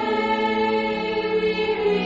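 Slow church music in sustained chords. The lowest part steps down about a second in.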